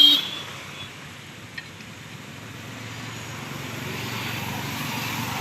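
Highway traffic going past: a vehicle horn note cuts off right at the start, then the steady noise of an approaching vehicle's engine and tyres slowly grows louder.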